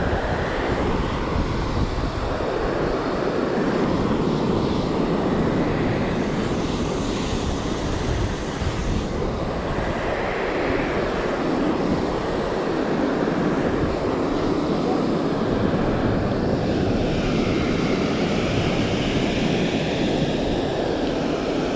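Steady, loud rushing noise with no words, holding even throughout: outdoor wind and moving water.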